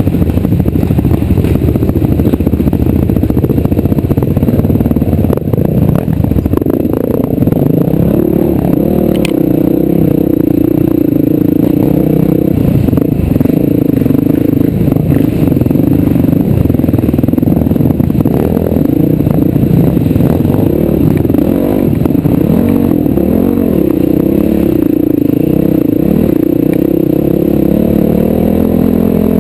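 A vehicle engine running under load with its revs rising and falling, over steady clattering and scraping from travel across rough ground.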